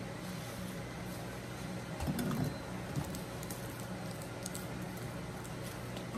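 Close-miked chewing and wet mouth sounds of someone eating, with a cluster of louder smacks about two seconds in and small clicks here and there, over a steady low hum.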